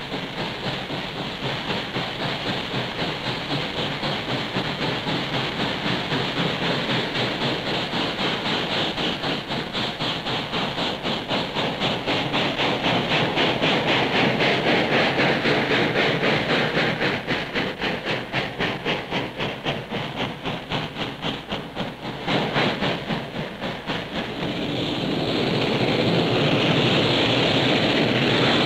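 Norfolk & Western steam locomotive working hard, its exhaust beating in rapid, regular chuffs over hissing steam. About 22 seconds in the beats break off and a steadier rushing noise takes over, growing louder toward the end.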